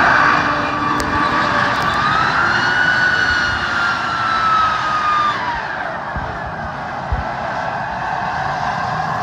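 M1A1 Abrams tank's gas-turbine engine whining as the tank turns and drives across sand, over a rushing noise from the running gear. The whine climbs in pitch about two seconds in, holds, then falls away after about five seconds as the turbine eases off.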